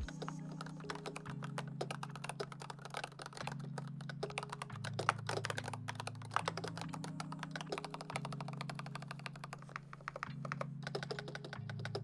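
Fast typing on a Razer Huntsman V2 Analog keyboard: a dense, uneven stream of key clacks from its linear analog optical switches, stopping just before the end.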